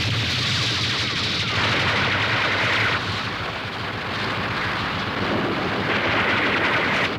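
Animated battle sound effects of rapid automatic gunfire, starting abruptly and running on as a dense, loud din that changes character about three seconds in.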